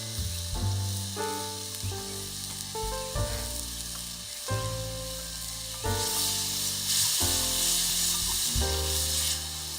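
Food sizzling in hot fat, the hiss growing louder about halfway through, over background music with held notes that change every second or so.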